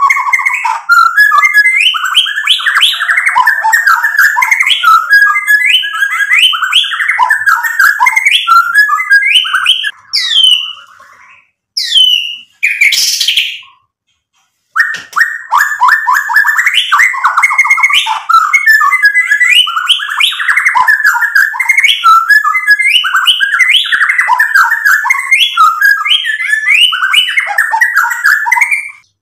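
White-rumped shama singing a fast, varied song of whistles, trills and rattling notes in an unbroken stream. About ten seconds in, it breaks into a few separate whistles and falls silent for a moment, then the full song starts again.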